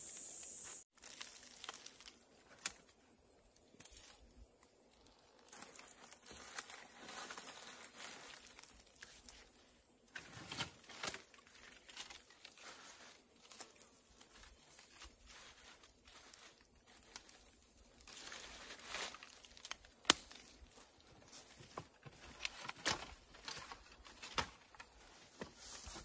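Branches and leafy brush rustling and crinkling as they are handled, with scattered sharp snaps and knocks, busier around the middle and toward the end.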